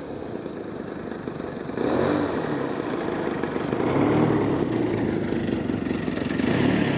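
Small petrol engine of an RC aerotow tug plane running, growing louder about two seconds in.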